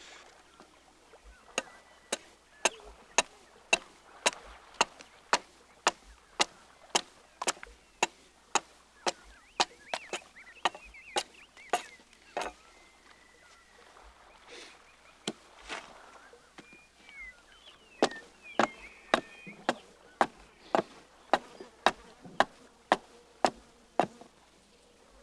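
Hatchet hewing a wooden paddle blank: a steady run of sharp chopping strikes, roughly two a second, with a pause of a few seconds mid-way. Birds chirp faintly between the strikes.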